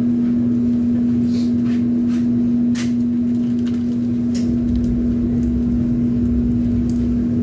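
Steady electric machine hum with one constant low tone, over a low rumble, with a few light clicks and knocks scattered through it.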